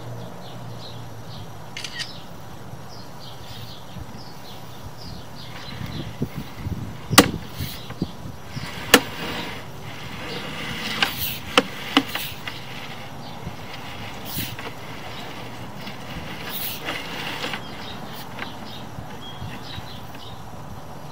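Sewer-inspection camera's push cable and reel being handled as the camera is pulled back and fed forward down the line, giving a run of sharp clicks and knocks in the middle. Behind it runs a steady outdoor background with short high chirps in the first few seconds.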